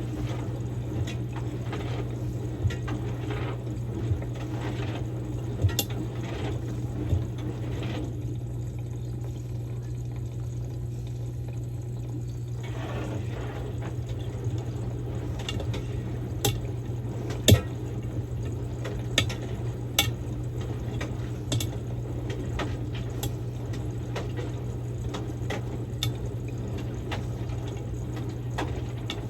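Samsung Grande washing machine on its quick-wash course: water rushing and sloshing in the drum over a steady motor hum, with scattered light knocks and clicks. The rushing water cuts out for about four seconds partway through, then starts again.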